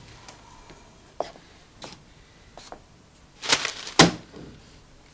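Newspaper pages rustling and crackling in a few short, scattered bursts, loudest about three and a half to four seconds in.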